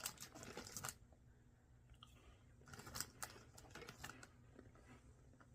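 Faint crinkling of a snack wrapper in the first second, then scattered small clicks and crunches of fudge-covered Ritz crackers being handled and bitten.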